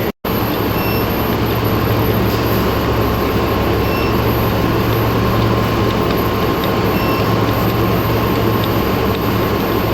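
Induction melting furnace running under power: a steady machine noise with a low hum and a constant thin high whine. Faint short pips come about every three seconds, and the sound cuts out for an instant just after the start.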